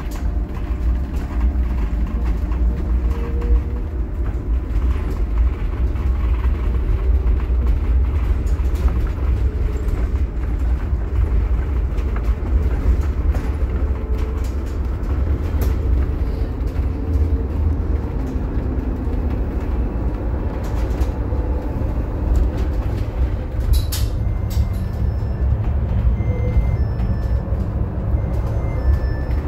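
Interior ride noise aboard a Scania/Higer Fencer F1 battery-electric bus under way: a steady low rumble of tyres and running gear with occasional rattles and clicks. Faint short high-pitched tones come in near the end.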